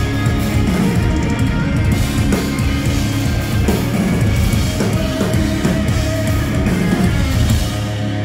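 Live instrumental progressive rock band playing loud: electric guitars over bass guitar and a drum kit. Near the end the lowest notes drop out and the playing eases a little.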